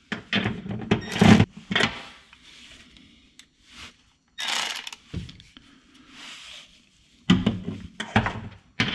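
Milwaukee cordless electric ratchet with a half-inch deep socket running in short bursts to spin the nuts off the seat-track studs under the floor pan, with clanks and scrapes of the socket against the metal. The bursts come several times in the first two seconds, once mid-way and again near the end.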